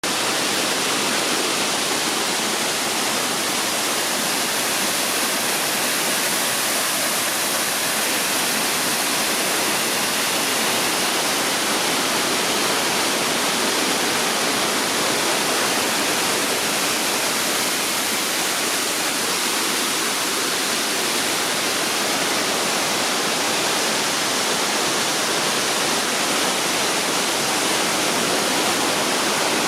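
Waterfall: a steady, even rush of falling water that holds at one level throughout.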